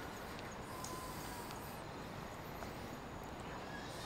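Faint, steady outdoor background hiss with a few soft ticks; no clear foreground sound.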